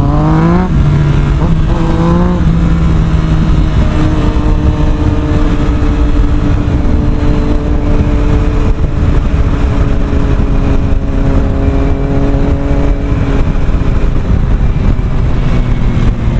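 Yamaha sport motorcycle's engine heard from the rider's seat, accelerating through two quick upshifts in the first couple of seconds, then holding a steady note at cruising speed, with wind rush on the microphone.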